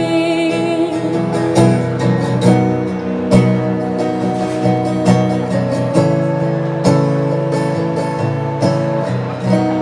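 Amplified acoustic guitar strummed alone in an instrumental break of a ballad, with a firm chord stroke about once a second. A held sung note fades out in the first half-second.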